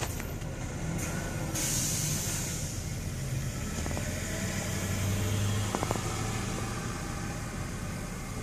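Vehicle noise heard from inside a car on a wet road: a steady low engine hum, with a brief hiss about two seconds in and a few sharp clicks about six seconds in.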